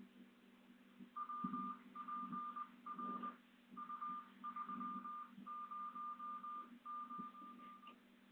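Electronic beeping: a single steady high tone pulsing rapidly in runs with short breaks, starting about a second in and stopping near the end, over a steady low hum.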